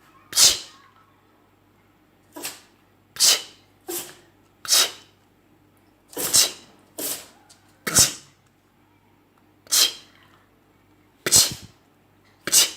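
Miniature pinscher sneezing over and over in quick, short, sharp snorts, about eleven of them at uneven intervals: sneezing on cue.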